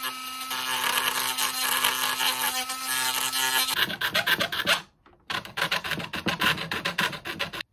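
Cordless Dremel-style rotary tool with a sanding attachment running against hard plastic trim, grinding off moulded hooks for about four seconds before its motor stops. After a short pause, quick repeated scraping strokes of a small hand tool on the plastic.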